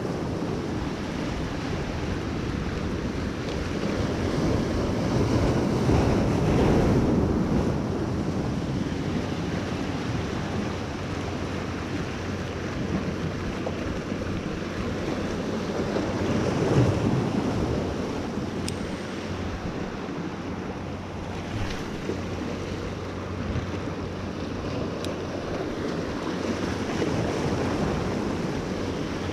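Ocean surf breaking and washing over the rocks of a jetty, swelling louder a few seconds in and again past the middle, with wind buffeting the microphone.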